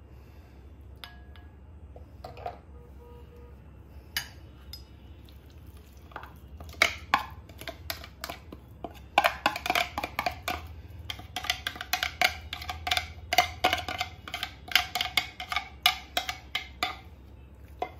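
Plastic spoon scraping and knocking chopped herbs out of a plastic chopper bowl into a glass bowl: a few scattered plastic clicks at first, then a quick run of knocks and scrapes from about seven seconds in until near the end.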